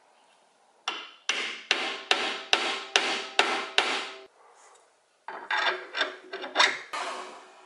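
A mallet tapping a steel spur drive center into the end grain of a wooden blank: eight steady blows about two or three a second, each ringing briefly, seating the spurs for the lathe. A quicker, uneven run of knocks follows near the end.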